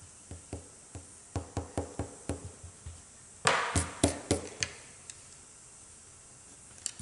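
Eraser rubbing out pencil lines on paper over a desk in short quick strokes, each one a small knock. About three and a half seconds in comes a louder swishing as a hand brushes across the sheet, sweeping off the eraser crumbs.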